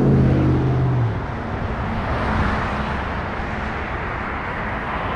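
Road traffic: a vehicle engine's hum that dips slightly in pitch and fades out about a second in, followed by a steady rush of traffic and tyre noise.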